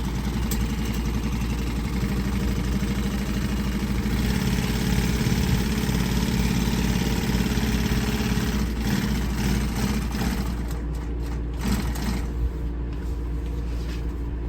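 Industrial walking-foot upholstery sewing machine stitching at a steady pace with a rapid, even rhythm over a constant low motor hum. About nine seconds in the stitching stops, leaving the hum and a few clicks.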